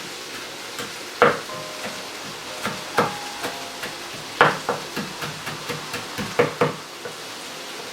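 Stirring in a metal pot: irregular clanks against the pot, each ringing briefly, over a steady hiss.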